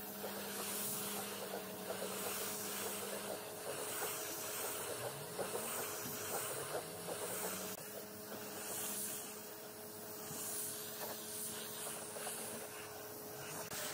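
Compressed-air spray gun hissing as it sprays finish onto wood, swelling and easing every second or two with each pass, over a steady low hum.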